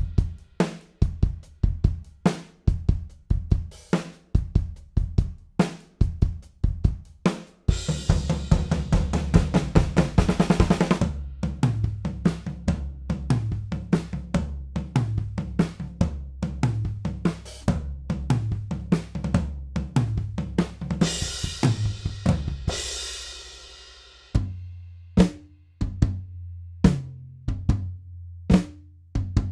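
Sampled acoustic drum kit from Toontrack's Stockholm SDX for Superior Drummer 3 playing a rock groove at 125 BPM: kick, snare and cymbals at about four hits a second. Crash cymbals wash over the beat twice, and after a brief drop about 24 seconds in, the 'Punchy Basic' preset kit carries on the groove.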